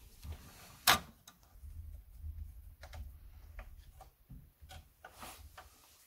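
Wires being worked into the terminals of a consumer unit: small plastic clicks and knocks with handling rustle, and one sharp click about a second in.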